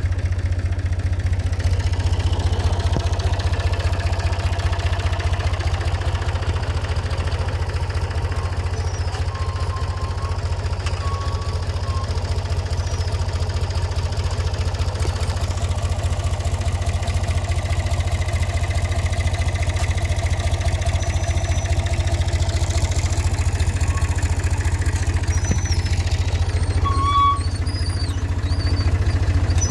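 Tractor engine running steadily with a low, even throb, pulling a planting machine.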